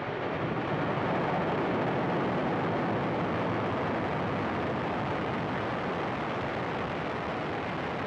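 Falcon 9 rocket's nine Merlin 1D first-stage engines firing at liftoff as the rocket climbs off the pad: a steady rush of noise that swells a little in the first second.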